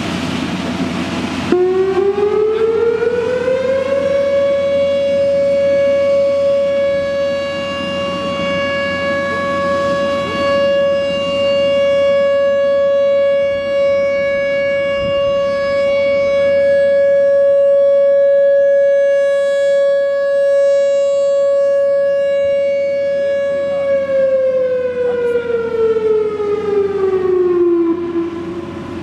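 Whelen WPS-3016 electronic outdoor warning siren sounding a 20-second steady alert test. About a second and a half in it winds up in pitch over a couple of seconds, holds one loud steady tone for about twenty seconds, then winds down in pitch over about four seconds and stops near the end.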